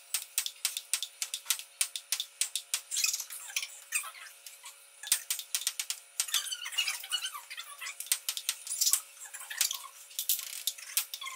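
Table tennis ball clicking back and forth between paddles and the table in a fast rally, several hits a second, with short squeaks mixed in.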